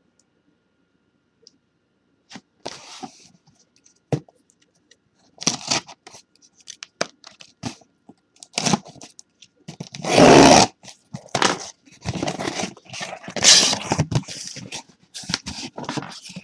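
A cardboard shipping case being opened by hand: irregular tearing, scraping and crunching as the packing tape is pulled and the flaps are forced back, loudest about ten seconds in.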